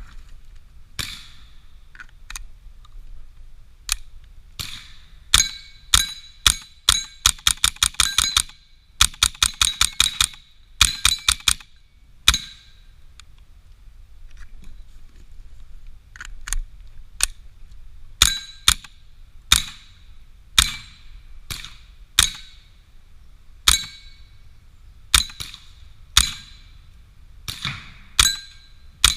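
Suppressed, short-barrelled Smith & Wesson M&P 15-22 .22 rifle firing at steel plates: sharp, subdued reports, many followed by the ringing of a hit steel target. Quick strings of shots come in the first half, then slower single shots about a second apart.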